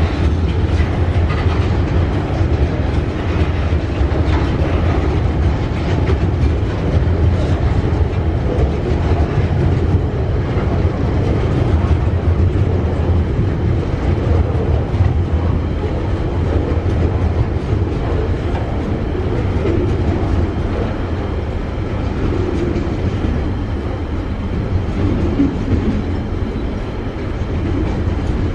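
Container wagons of a freight train rolling past, a steady noise of steel wheels running on the rails, slightly quieter near the end.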